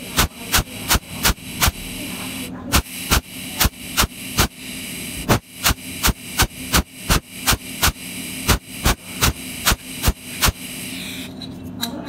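Cold welding machine pulsing its arc at the tungsten tip: a steady run of sharp clicks, about three a second, each pulse laying down one weld spot, over a steady electrical hum and hiss. The clicks pause briefly twice and stop shortly before the end.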